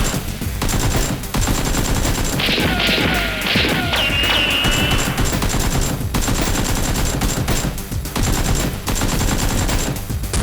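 Sustained rapid gunfire sound effects, like machine-gun fire, over background music, with a few falling whines mixed in.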